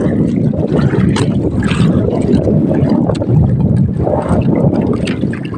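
Wind buffeting a phone's microphone aboard a small boat at sea, a steady low rumble.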